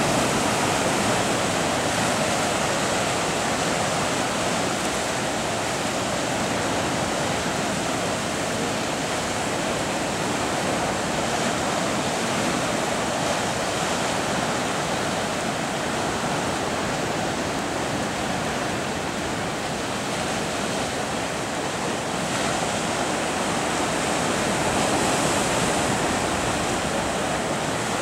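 Rough sea churning and breaking in white water around a concrete breakwater: a steady wash of surf noise that swells a little near the end.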